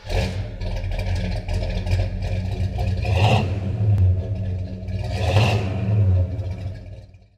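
Pontiac GTO's V8 engine idling with a deep, uneven beat. It is revved twice, about three seconds in and again about five and a half seconds in, and fades out near the end.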